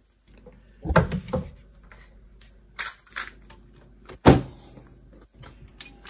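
Knocks and clunks of a cassette deck's sheet-metal chassis being turned and handled on a metal workbench: a cluster of knocks about a second in, two smaller ones near three seconds, the loudest sharp knock just past four seconds, and a few small clicks near the end.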